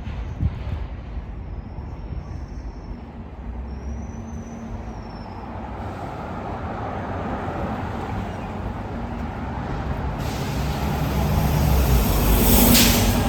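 Street traffic with a heavy vehicle's engine growing louder as it comes close, then a loud hiss of air brakes near the end.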